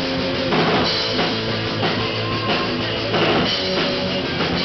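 Live rock-and-roll band playing: electric guitars over a drum kit with a steady bass drum.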